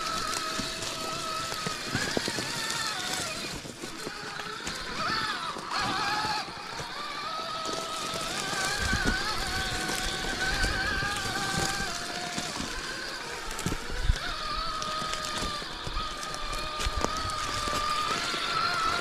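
Electric motor and geared drivetrain of a 1/6-scale RC rock crawler whining, the pitch rising and falling with the throttle as it climbs over rocks, with occasional knocks of tyres and chassis on stone.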